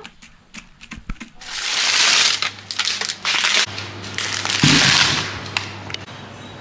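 A plastic bag of potatoes being handled, its plastic crinkling and rustling in two long spells, with a dull thud about halfway through as the bag is set down on a wooden table.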